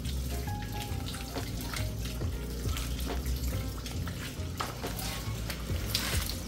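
Water running and splashing at a kitchen sink as emptied containers are rinsed, with occasional light clatter.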